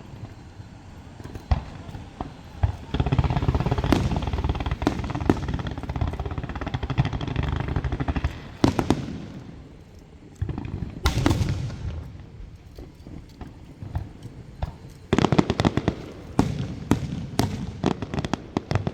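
Aerial fireworks going off: separate sharp bangs, a dense stretch of crackling a few seconds in, then a quick run of bangs near the end.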